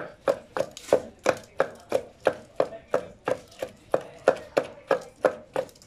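Long wooden pestle pounding green leaves in a carved wooden mortar: a steady rhythm of dull thuds, about three a second.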